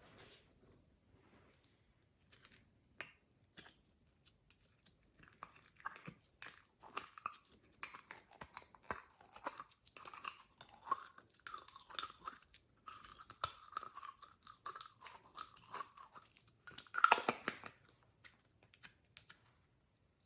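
Glossy slime being squished and kneaded by hand: wet crackling and squelching pops, sparse at first and then dense, with a louder burst of squelches near the end.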